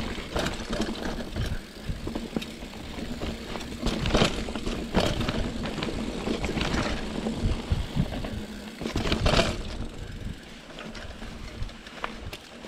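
Trek Marlin 7 hardtail mountain bike ridden down a dirt trail: a steady rumble of tyres on dirt, with rattles and knocks from the bike over roots and bumps, loudest about four and nine seconds in.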